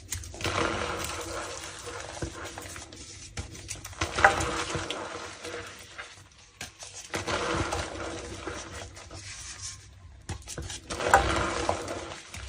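Gym chalk and soap foam being crushed: four crunching bursts of two to three seconds each, with a few sharp cracks among them.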